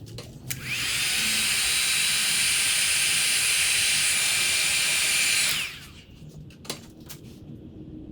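Electric heat gun blowing hot air for about five seconds, shrinking heat-shrink tubing over crimped wire splices. Its fan whines up as it starts and winds down as it is switched off, and there is a sharp click before and after.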